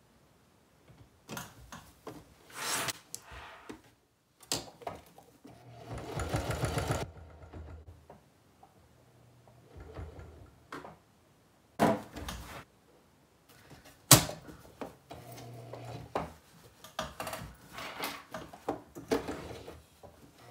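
Singer Heavy Duty 4411 sewing machine stitching a patch onto a denim vest in a series of short runs with pauses between them as the fabric is repositioned. A sharp click comes about two-thirds of the way through.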